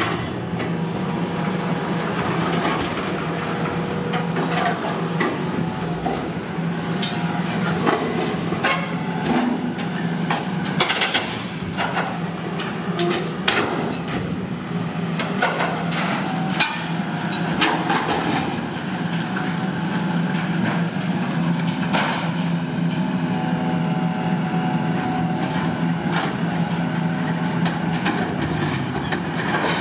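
Volvo EC480E high-reach demolition excavator running steadily while its demolition shear crunches and tears through a steel silo wall, with irregular sharp metal cracks and bangs over the engine.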